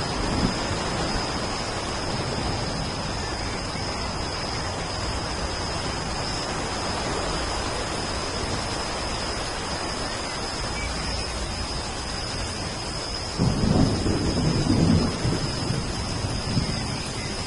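Steady rain falling, with a low rumble of thunder about 13 seconds in that lasts about two seconds. A thin steady high whine sits underneath.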